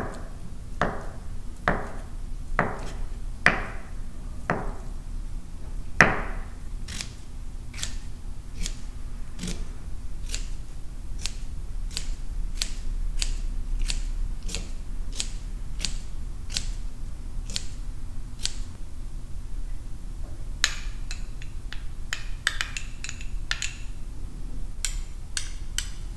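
Kitchen knife chopping on a cutting board in slow, even strokes about once a second, then lighter, quicker cuts a little under twice a second. After a short pause there is a run of fast, irregular clicking near the end.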